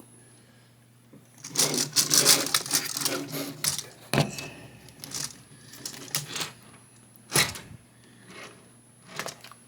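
Hard plastic clicking and rattling as the tail piece of a remote-control Godzilla toy is worked onto the body and snapped into place. There is a busy run of clicks early on, then a few separate sharp clicks, the sharpest about seven seconds in.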